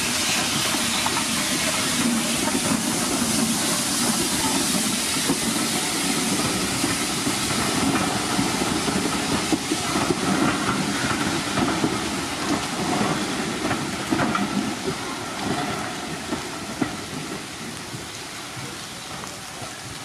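Steam train passing on the embankment: steam hissing over the rumble of the carriages, with wheels clicking on the rail joints, then fading away over the last few seconds.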